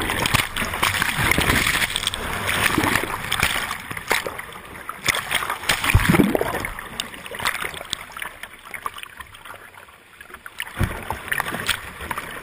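Whitewater rapids churning and splashing over a kayak, heard through a GoPro housing that is swamped and goes under the water. The rush is loudest at first and eases later, with a heavy dull thump of water about halfway through and another near the end.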